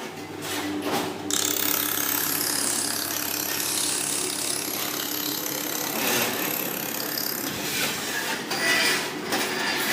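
Laser welding machine at work: rapid irregular clicking, with a steady hiss and a thin high whine from about a second in until about three-quarters through.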